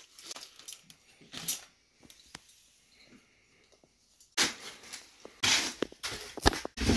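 Handling noise from unpacking: a slatted metal laser bed lifted out of its white foam packing insert and foam blocks moved, giving short scrapes and rubbing with a few sharp clicks. It goes nearly quiet for about two seconds in the middle and gets busier towards the end.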